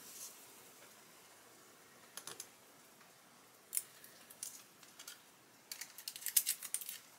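Light clicks and ticks of a hobby knife and fingers working a thin brass photo-etch fret while its protective plastic film is cut and peeled off. A few single clicks come first, then a quick flurry of them near the end.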